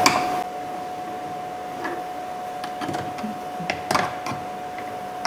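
Light clicks and scrapes of a screwdriver working the Phillips screws out of a car's rear door trim panel, over a steady faint high-pitched hum.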